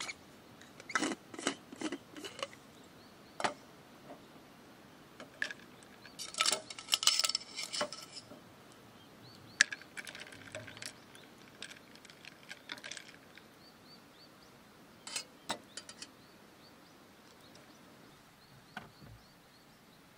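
Ice cubes and a metal fork clinking in a glass of green tea, in scattered bursts with a busier clatter about six to eight seconds in, with clicks from the lid of a stainless insulated tumbler near the start.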